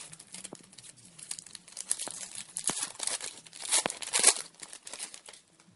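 Foil wrapper of a Topps Chrome trading-card pack being torn open and crinkled, a run of rapid crackling rustles that is loudest about four seconds in.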